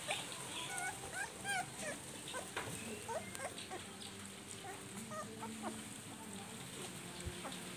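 Puppies eating rice from a steel bowl, with small wet clicks and smacks of chewing and lapping. Short squeaky rising-and-falling animal calls come several times in the first few seconds and a few more faintly later.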